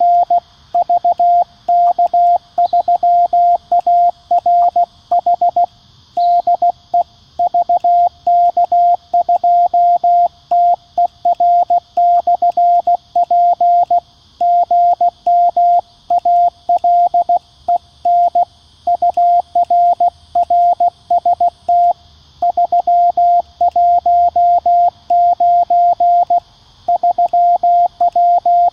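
Morse code sidetone from a QCX-mini CW transceiver: a loud single-pitch tone keyed in dots and dashes at about 16 words per minute as the operator transmits his reply, 'RR VK3ARH DE VK2TER/P', with short pauses between groups. A faint steady hiss sits underneath.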